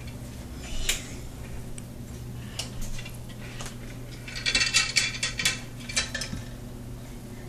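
Light clinks and clatter of small hard objects being handled: a few scattered taps, then a busier run of ringing clinks about halfway through, over a steady low hum.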